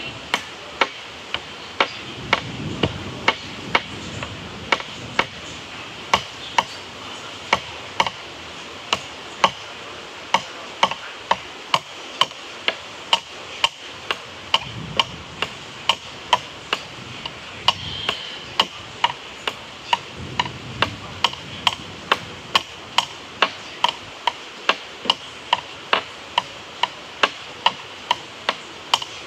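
Steady, regular ticking, about two ticks a second, over a faint steady hiss.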